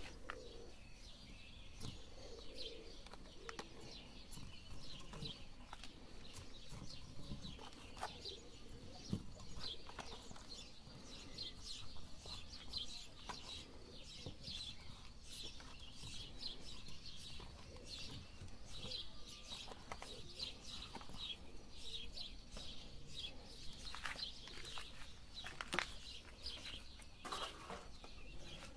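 Faint, irregular chirping of small birds, with quiet handling clicks as soft candies are pressed into a motorcycle's exhaust tip. The engine is not running.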